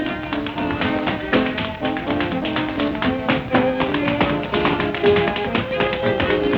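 Early jazz band recording with tap dancing: rapid, sharp taps over a small band playing the tune, with the thin, narrow sound of an old record.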